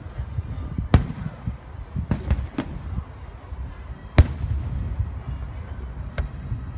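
Aerial fireworks shells bursting in the sky: about six sharp booms, the loudest about a second in and about four seconds in.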